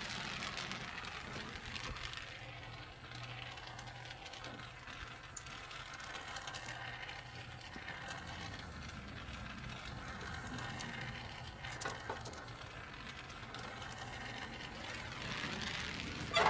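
A few light metallic clinks, and a louder metal knock near the end: the desoldered upper tank of a tractor radiator being worked loose from the core.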